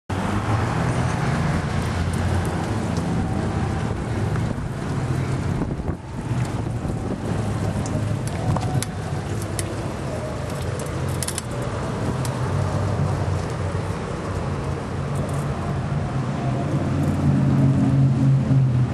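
Steady wind rumble on the microphone and rolling noise from a bicycle riding over pavement, with a few light clicks and rattles around the middle; it gets louder near the end.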